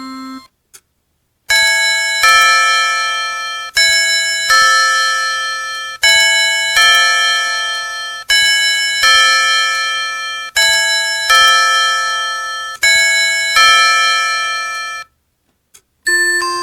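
Citizen Karakuri musical clock's FM-synthesized electronic chime, played through its speaker, counting the hour. It gives six two-note ding-dong strikes, one about every two and a quarter seconds, each ringing and dying away. The last notes of the previous tune end just at the start, and the clock's ending melody begins near the end.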